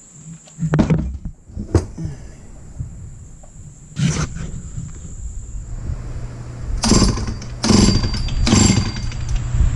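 Dayton 2Z383 (Lancaster 40IL) chainsaw pull-started: a couple of short sputters, then the engine catches about four seconds in and runs steadily. It is revved three times near the end.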